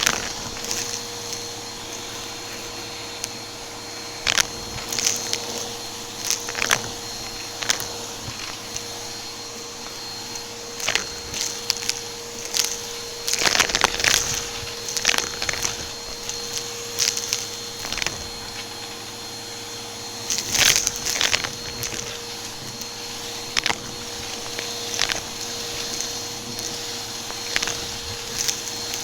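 Upright vacuum cleaner running steadily with a constant motor hum, with irregular sharp crackles and crunches as debris is sucked up through the brushroll.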